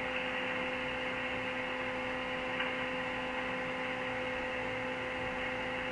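Steady electrical hum with a faint hiss from a two-way radio set left open on a channel where no reply is coming through.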